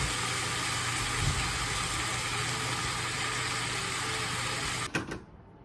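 Kitchen range hood fan running with a steady hum and rush of air, cutting off suddenly about five seconds in.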